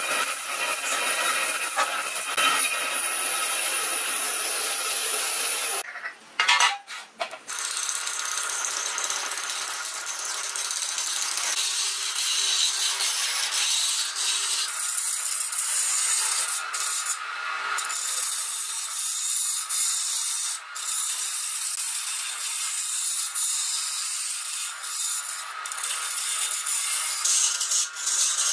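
Band saw cutting through a block of wood for the first few seconds. Then, after a short break, a wood lathe spins a wooden cylinder while a hand-held gouge cuts into it, a steady scraping cut as the chips fly.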